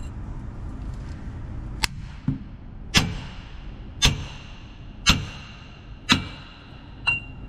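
Hammer blows on the end of a pipe driver, about seven strikes roughly a second apart, each with a short metallic ring. The blows are driving the bearing assembly into a Hale fire pump's housing.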